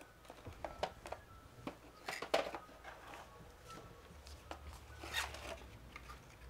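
Cardboard packaging and paper leaflets handled by hand: scattered light taps and clicks, with brief rustles about two seconds in and again about five seconds in.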